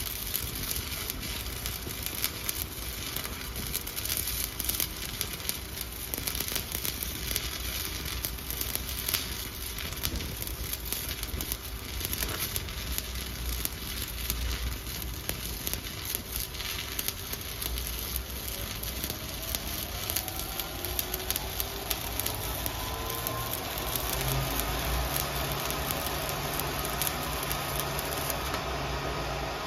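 Stick (shielded metal arc) welding with a 7018 electrode on a vertical 3G plate coupon: the arc crackles and sizzles steadily, with frequent sharp pops. A faint rising whine comes in underneath in the second half.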